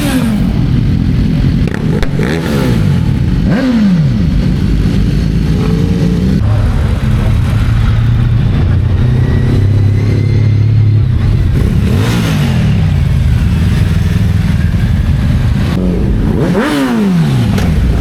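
Motorcycles riding past one after another, each engine note dropping in pitch as it goes by, about four times, with engines running steadily at low revs in between.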